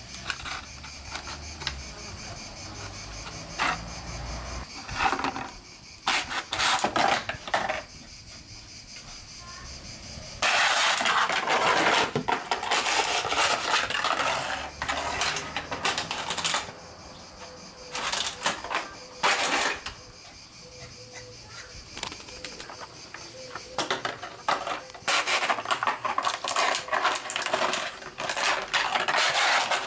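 An empty plastic water bottle crinkling and clattering on terrace tiles as a puppy chews it and bats it about: bursts of sharp crackles and clicks, densest about a third of the way in.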